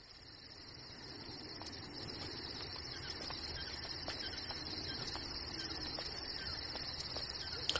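Crickets chirring in a steady, fast-pulsing chorus that fades in, with scattered short bird chirps over it.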